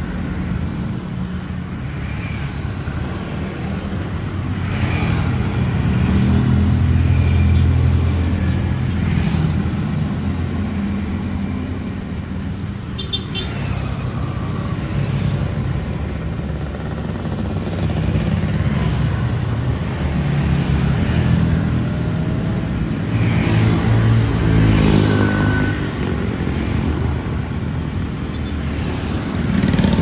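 Street traffic of motorbikes and cars passing: a continuous mix of small motorcycle engines, car engines and tyres, swelling several times as vehicles go by close and then fading.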